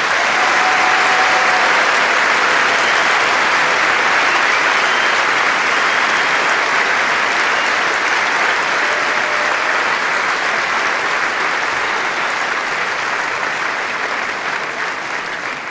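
Large audience applauding, a dense steady clapping that swells within the first second and slowly tapers off toward the end.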